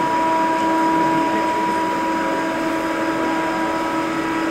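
An approaching Indian Railways electric locomotive sounding one long horn blast, several notes at once, held at a steady pitch and stopping near the end.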